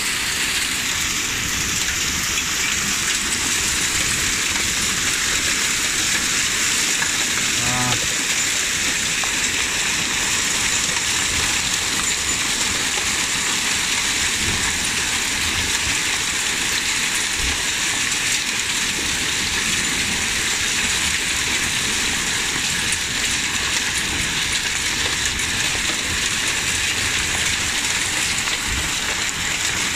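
Small hailstones mixed with rain falling steadily on a wooden deck: a dense, unbroken hiss.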